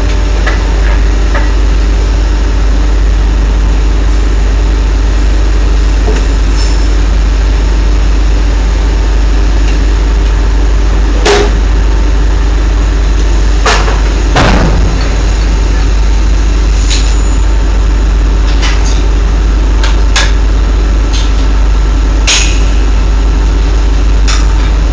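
Drilling rig machinery running with a steady heavy low rumble. Sharp metal clanks and knocks come from time to time, about eight of them from midway on, as heavy-weight drill pipe and its handling gear are worked on the drill floor.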